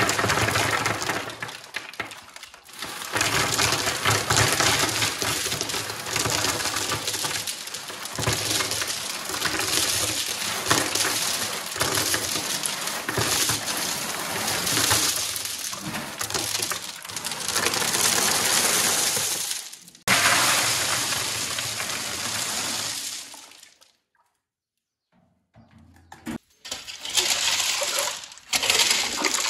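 Rounded river pebbles pouring and clattering out of a tipped metal wheelbarrow onto a plywood board and down into a trench, a long dense rattle that stops suddenly about twenty-three seconds in. After a short pause, a rake scrapes and rattles through the gravel near the end.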